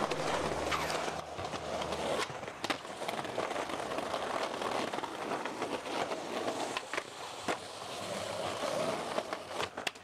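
Skateboard wheels rolling on a concrete sidewalk, with several sharp clacks of the board hitting the ground, the last few close together near the end.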